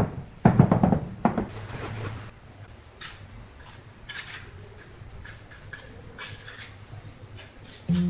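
A mallet knocking a few times on a granite stair tread in the first second and a half, bedding it into the mortar. Then a steel trowel scraping and spreading wet mortar across the concrete step, with small clinks.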